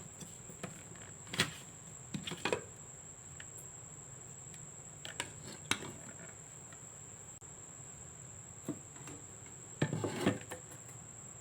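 Scattered light clinks and knocks of a blender jar and glassware being handled as the blended milkshake is taken out, with a small cluster of knocks near the end. A faint, steady high-pitched whine sits underneath.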